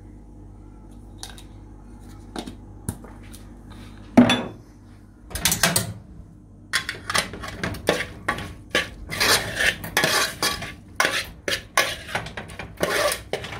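A metal spoon scraping and clinking against a stainless steel pot as ground spices are stirred into fried onions to roast. A single loud clank comes about four seconds in, then fast, repeated scraping strokes from about seven seconds on.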